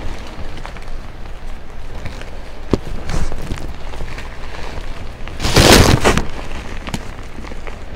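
Hands crushing and squeezing a crumbled, paste-coated fresh block of gym chalk, a dry crunching and crumbling in bursts, with a sharp crack about three seconds in. The loudest crunch comes about two-thirds of the way through.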